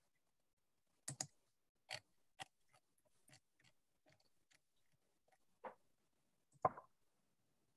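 Faint computer keyboard keystrokes, a dozen or so irregular clicks and taps with gaps between them, the loudest a little before the end.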